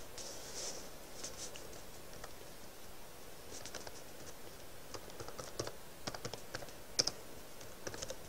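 Computer keyboard typing: quiet, irregular keystroke clicks in short runs, sparse at first and coming thicker about halfway through.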